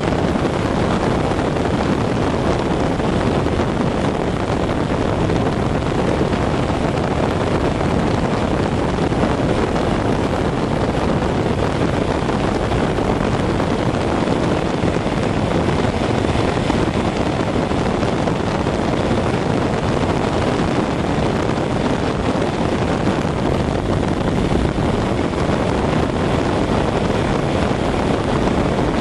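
An AH-64D Apache's auxiliary power unit running steadily, an even rushing noise heard inside the cockpit, with the main engines not yet started.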